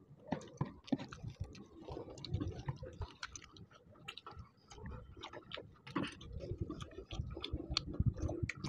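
Two people eating rice and chicken curry with their hands: chewing and mouth smacks heard as many quick, irregular clicks, with fingers working the rice on plastic plates.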